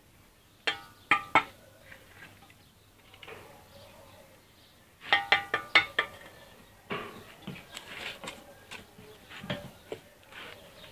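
Steel mason's trowel clinking and scraping against hollow bricks and mortar: three sharp strokes about a second in, a quick cluster of them around five seconds in, then lighter scattered scrapes and taps.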